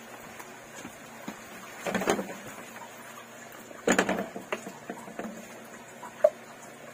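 Wooden spatula scraping and knocking against a pan while stirring squid and vegetables in sauce, in two short bursts about two seconds apart and a small tap near the end.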